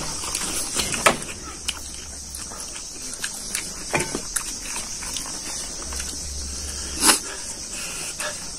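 Mukbang eating sounds: people chewing rice and pork liver curry eaten by hand, with wet mouth smacks and a few sharper clicks, over a steady high hiss.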